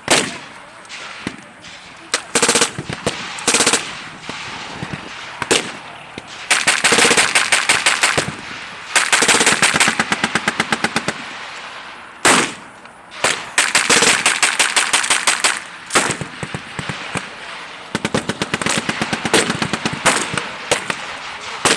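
Machine guns firing blank rounds in long rapid bursts, several in a row, with single rifle shots cracking between the bursts.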